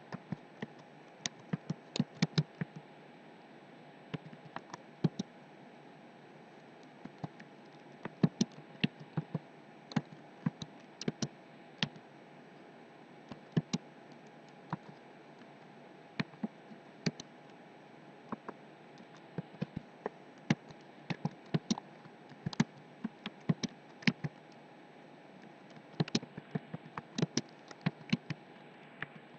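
Computer keyboard typing: sharp, irregular keystrokes in quick bursts with short pauses between, over a faint steady hiss.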